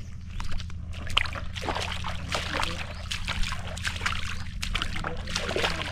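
Shallow water sloshing and splashing with scattered sharp knocks, over a steady low motor-like hum.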